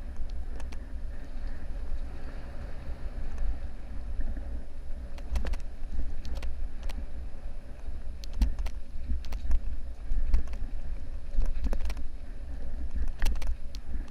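Wind buffeting the microphone as a mountain bike rolls fast down a dirt singletrack, with a steady rumble of tyres on the trail and scattered sharp clacks and rattles from the bike jolting over rocks and roots.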